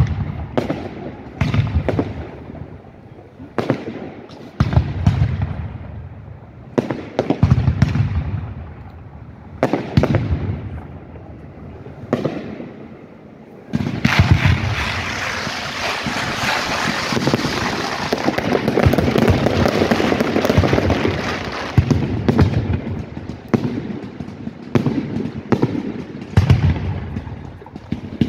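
Fireworks display: shells bursting in separate loud bangs that echo and die away, one every second or two. About halfway through, a dense crackling hiss sets in for several seconds, then the separate bangs return.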